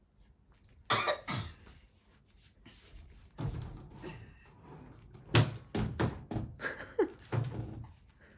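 A Pomeranian puppy playing tug with a piece of cloth: after about a second of quiet, a string of scuffles, rustles and knocks, in uneven bursts.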